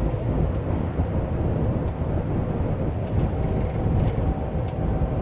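Cab noise of a MAN TGX truck's 500 hp diesel driving at road speed: a steady low engine drone mixed with tyre and road rumble, with a few faint light ticks about three seconds in.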